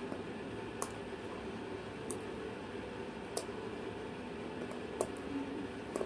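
Cockatoo chewing and crunching small wooden blocks with its beak, a sharp crack about every second over a steady background hiss.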